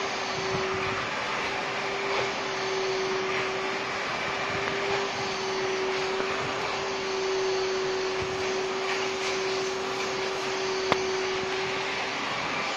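Canister vacuum cleaner running steadily, drawing its hose nozzle over shampooed sofa upholstery, with a constant whine over the rush of air. A single sharp click about eleven seconds in.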